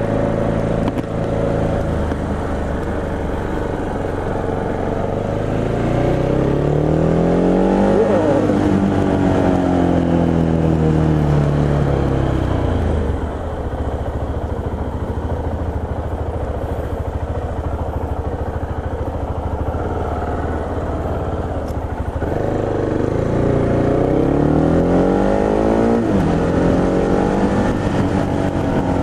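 Motorcycle engine under way: its pitch rises as it accelerates about six seconds in, falls away slowly as it eases off, holds steady while cruising, then climbs again and drops sharply at a gear change a few seconds before the end before rising once more.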